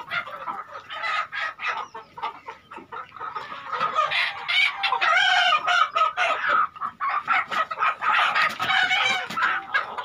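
A flock of desi Sonali chickens clucking and calling over one another, with a rooster crowing partway through.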